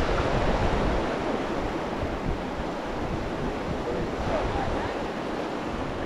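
River water rushing steadily around a raft, with wind buffeting the microphone for about the first second.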